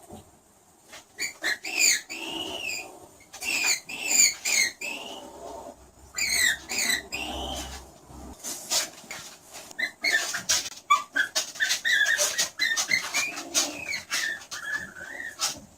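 Skunk giving a rapid series of short, high-pitched squeaks that rise and fall in pitch, mixed with sharp clicks.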